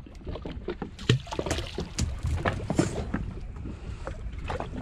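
Sounds aboard a small drifting fishing boat: a steady low rumble with wind on the microphone, and scattered light knocks and clicks.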